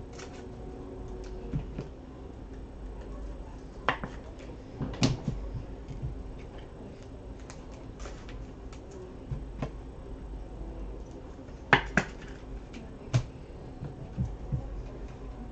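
Scattered light clicks and knocks of small objects being handled and set down on a tabletop, with a sharper pair of knocks about three-quarters of the way through, over a low steady room hum.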